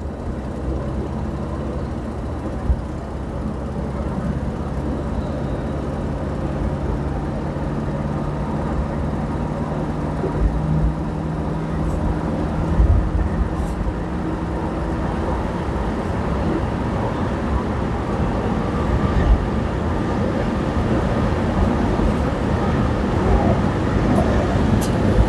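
1964 Ford Thunderbird's 390 V8 with four-barrel carburettor, heard from inside the cabin while driving: a steady engine drone under road and wind noise. The sound rises within the first second and then holds steady.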